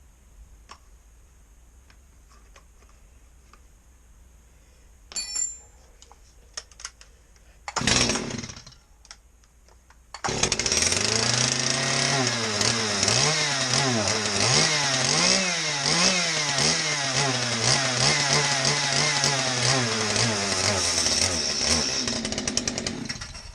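Stihl MS211 35cc two-stroke chainsaw being pull-started: a pull of the starter cord about eight seconds in, then the engine catches two seconds later and runs for about twelve seconds with its revs rising and falling unevenly, before cutting out near the end.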